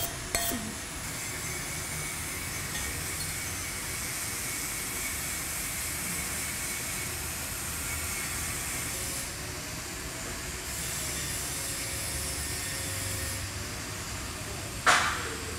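Steady hiss of a TIG welding arc running on a carbon steel pipe as a weld pass is laid. A few light metal clinks right at the start and one sharp crack near the end.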